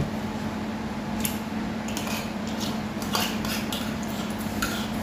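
Chopsticks and spoons clicking and scraping against ceramic plates and bowls as people eat, a scattering of short, light clinks.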